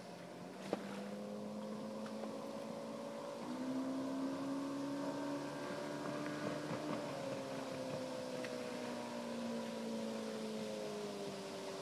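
Two-stroke Yamaha 115 hp oil-injected outboard on a Glastron runabout running across the lake. Its engine note steps up in pitch about a third of the way in, then slowly sinks.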